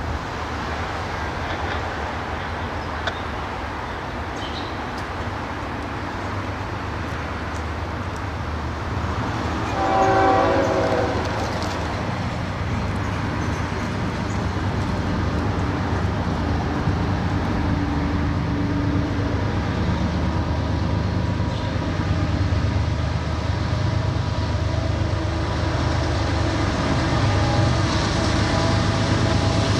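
Diesel locomotives of a Norfolk Southern freight train running by with a steady low engine drone, growing louder toward the end. A short horn blast sounds about ten seconds in.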